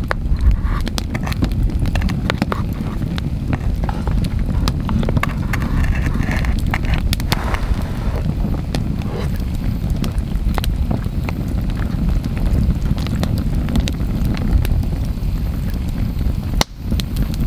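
Wood campfire crackling with scattered sharp pops over a steady low rumble, while a wooden spoon stirs curry and rice in a metal pot.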